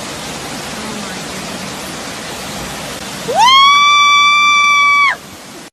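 Steady rushing noise of falling water. About three seconds in, a loud pitched tone sweeps quickly up and holds steady for nearly two seconds, then stops.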